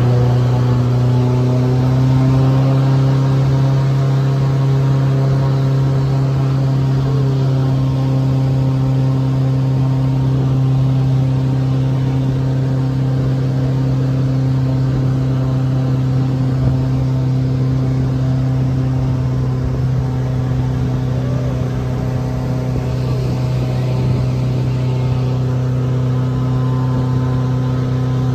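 Airboat's engine and air propeller running steadily, a loud constant hum holding one pitch throughout.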